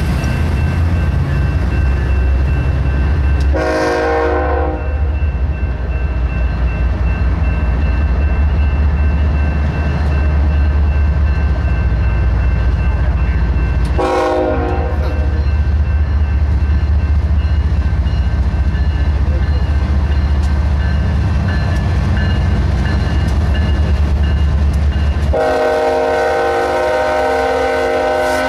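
Diesel freight locomotives running past with a loud, steady low rumble. A multi-note air horn sounds three times: two short blasts about ten seconds apart, then a longer blast of about three seconds near the end.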